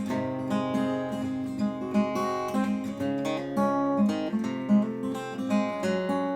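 Background music: plucked and strummed acoustic guitar playing steadily.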